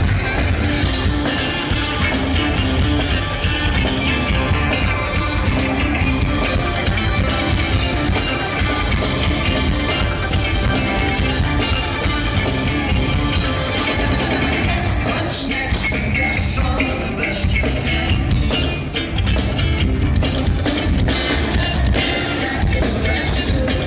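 Live funk rock band playing loudly: drums, bass, electric guitar and a saxophone horn section with singers, heard from the audience.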